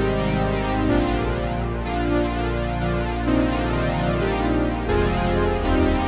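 Dreadbox Nymphes analog polyphonic synthesizer playing sustained chords over a low bass note. The harmony changes about a second in and again every second or so, with a new bass note near the five-second mark.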